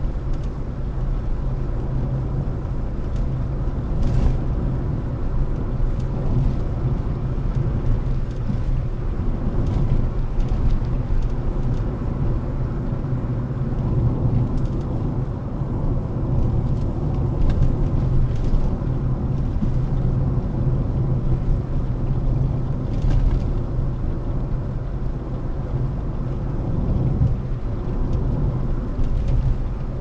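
A moving car's steady low rumble of engine and road noise, with a few faint ticks.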